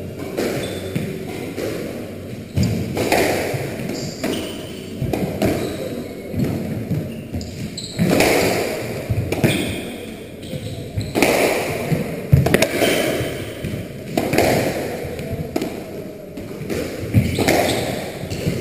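Squash rally: the ball cracks off rackets and the court walls in irregular hits about a second apart, each ringing in the echoing walled court.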